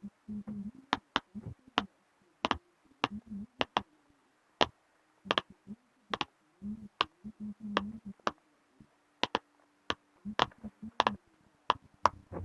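Silicone pop-it fidget toy bubbles pressed one after another, giving a string of sharp little pops at an uneven pace, a few a second, with faint rubbing of fingers on the silicone between them.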